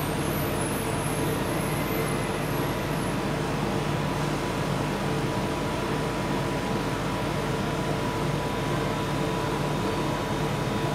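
Steady mechanical background noise with a constant hum, and faint high-pitched chirps in the first three seconds.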